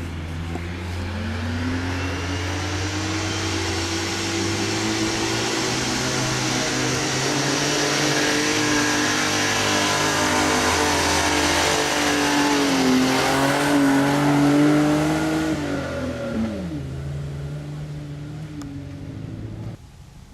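Off-road 4x4's engine revving up and held at high revs under load for about twelve seconds, with a brief dip, then dropping back to idle. The sound cuts off abruptly near the end.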